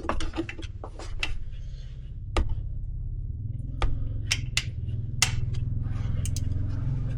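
Scattered sharp clicks and metallic taps of hand tools working on the alternator bolts in a car's engine bay, over a steady low hum.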